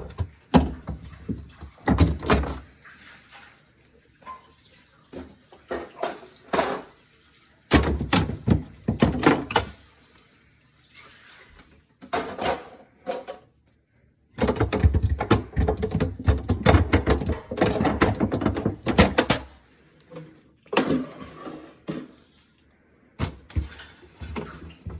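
Refrigerator shelves being taken out: repeated clunks, knocks and sliding scrapes of the shelves against the fridge interior, coming in clusters with the busiest stretch about halfway through.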